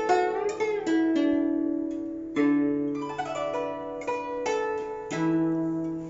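Guzheng (Chinese plucked zither) played solo: plucked notes ring and fade. Near the start the left hand bends some notes in pitch, and deep bass notes are struck about two and a half and five seconds in.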